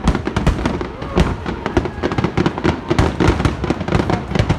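Aerial fireworks in a dense finale barrage: shell bursts banging rapidly, several a second and overlapping, with no pause.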